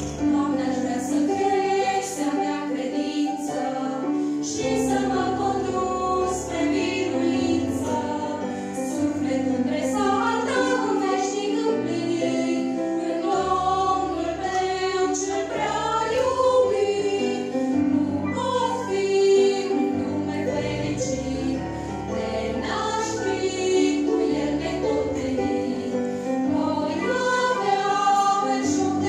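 A small group of women singing a song together into microphones, several voices at once in held notes.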